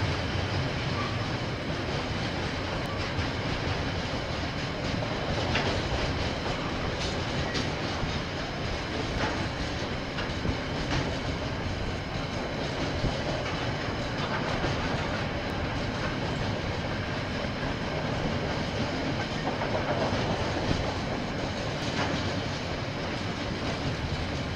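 Container freight train wagons rolling past in a steady rumble, with occasional clicks of the wheels over the rail joints.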